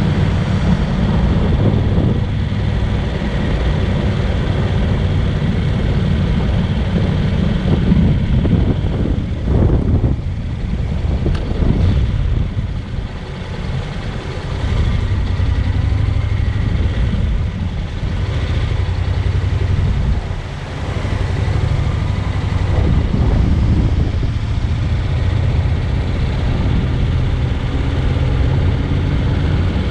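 Honda NC750X's parallel-twin engine running under way with wind rushing past, the engine note easing off twice, around ten and twenty seconds in.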